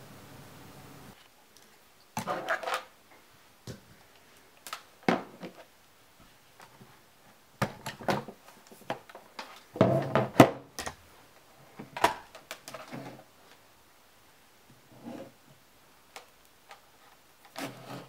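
Handling noise: a plastic Ryobi One+ battery pack being picked up and set down on a table, and multimeter test leads being handled. It gives scattered knocks, clicks and short rustles, with the loudest cluster of knocks about ten seconds in. A faint steady hiss in the first second cuts off.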